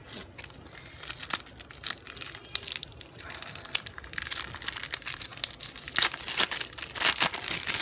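Foil wrapper of a Match Attax trading-card booster pack being torn open and crinkled by hand: a dense, irregular crackling that grows louder in the second half.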